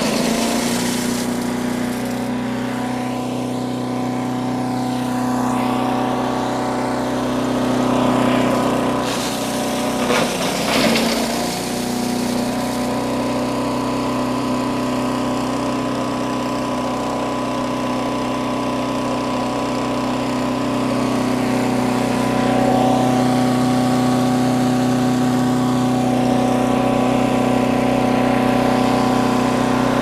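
Harbor Freight chipper shredder's gas engine running steadily at full speed. About ten seconds in there is a short burst of grinding as a piece of 2x12 board is chipped, and the engine pitch dips slightly under the load.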